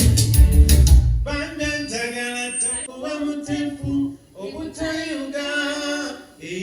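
Band music with heavy bass and a steady beat stops about a second in, leaving a singer's voice alone, singing short unaccompanied phrases with brief pauses between them.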